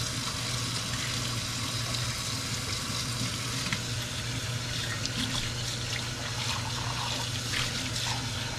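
Kitchen faucet running steadily into a stainless steel sink while a mug is scrubbed with a sponge and rinsed under the stream, with a steady low hum underneath and a few small knocks in the second half.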